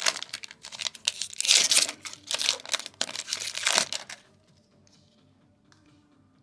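A foil booster-pack wrapper being crinkled and torn open in several rustling bursts, which stop about four seconds in.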